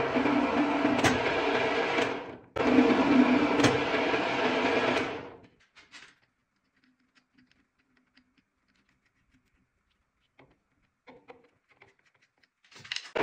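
TV4 benchtop lathe running with its motor and gear train humming steadily while screw-cutting a thread through a 3D-printed plastic change gear. It cuts out a little over two seconds in, starts again at once, and runs down about five and a half seconds in. After that only faint clicks and handling sounds remain.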